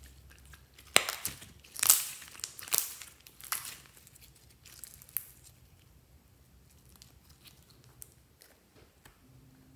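Slime being stretched and pulled apart by hand, giving a run of sticky crackling, tearing pops in the first half, then quieter squishing as it is pressed down.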